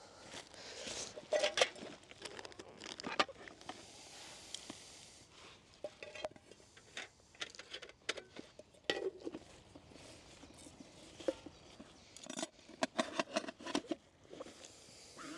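Irregular clinks and knocks of a metal camping pot and lid being handled and packed away, mixed with rustling of gear bags and dry leaves underfoot.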